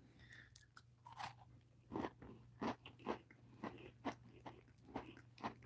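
Quiet, irregular crunching and chewing of a chocolate-covered wafer cookie, a dozen or so small crunches.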